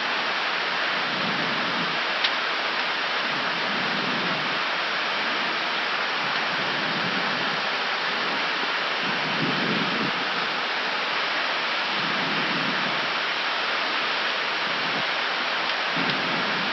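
Steady rushing noise of air in an Airbus A319 cockpit during descent, the airflow over the nose and windscreen together with the cabin air conditioning, with engines at idle. A single faint click about two seconds in.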